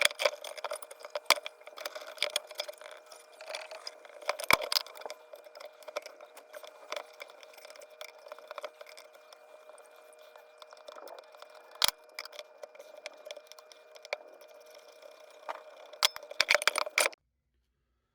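Metal parts and hand tools clinking and rattling as a small hand-crank forge blower is taken apart, with sharp knocks about 4.5 and 12 seconds in. It cuts off suddenly near the end.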